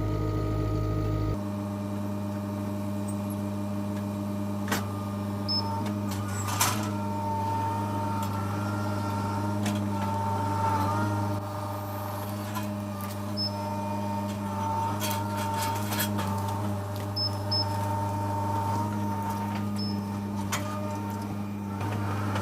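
Skid steer engine running steadily under work while pulling out tree stumps, with a thin, faint, high whine above it and scattered sharp clicks and knocks.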